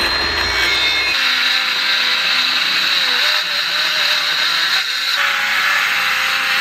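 Circular saw cutting through a plywood sheet, running steadily under load with a high whine; the tone of the cut changes about a second in and again about five seconds in.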